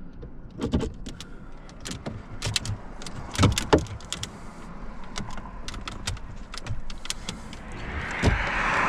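Plastic dash trim and an air vent being handled and worked loose: scattered sharp clicks and knocks of hard plastic, with a scraping rustle near the end.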